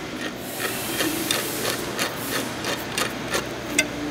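Electric drill running, its twist bit cutting a centring start into the steel stem of a CherryMax blind rivet, with a steady grinding hiss and a regular tick about three times a second, one sharper tick near the end.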